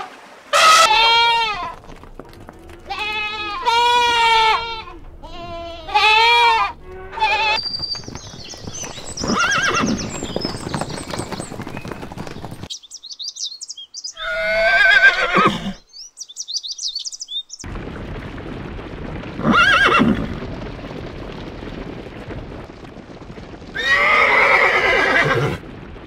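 A run of animal calls: several short pitched calls rising and falling in the first seven seconds, then horses neighing four or five times, each whinny with a quickly wavering pitch.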